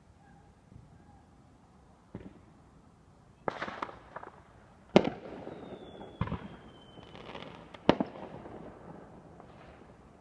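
Fireworks going off: about five sharp bangs, the loudest about five seconds in, with crackling between them. A thin whistle falls slightly in pitch for a couple of seconds in the middle.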